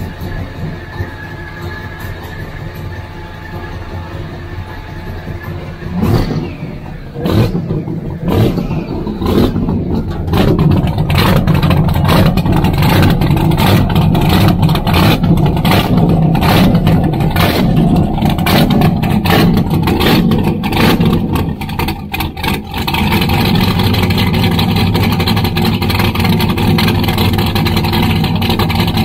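Donzi speedboat's supercharged inboard engine running on its trailer, fed by a garden hose: it idles at first, then about six seconds in goes rough and much louder and keeps running loud and choppy, with a brief dip near the end. Water sprays hissing from the exhaust outlets and outdrive while it runs.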